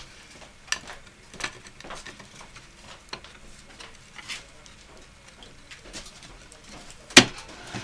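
Wooden chair parts clicking and knocking as the top back rail is worked onto the turned spindles in an unglued dry fit, with a sharp louder knock about seven seconds in as a joint seats.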